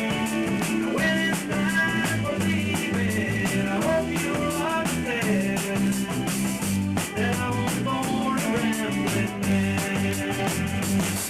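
Rock band rehearsing an instrumental passage: drum kit keeping a steady beat under bass, with a wandering melodic lead line over the top and no singing.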